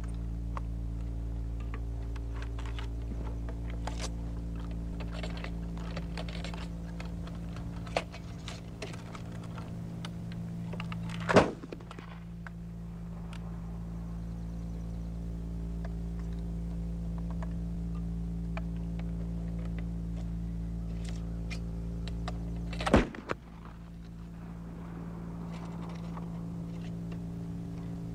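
Flintlock muzzle-loaders being loaded and fired: small clicks and taps of loading, then two loud gunshots, about 11 and 23 seconds in, over a steady low hum.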